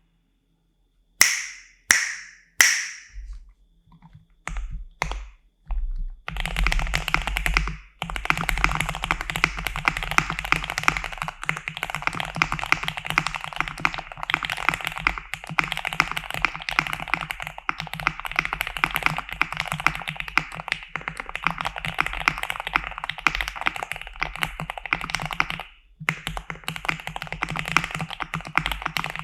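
Spark67 mechanical keyboard with Gateron Pro switches, PE foam and a tape mod under the PCB, being typed on. Three sharp ringing clicks and a few single keystrokes come first, then continuous fast typing from about six seconds in, with two brief pauses. The foam and tape mod are meant to make the keystrokes sound deeper and more 'thocky'.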